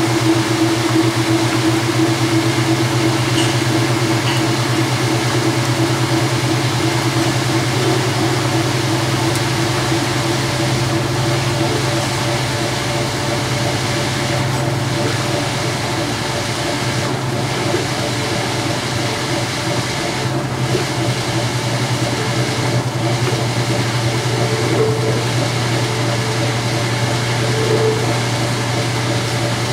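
Whirlpool-built direct drive top-load washer in its spin cycle: the basket spinning at speed with a steady motor hum, the drain pump running along with it.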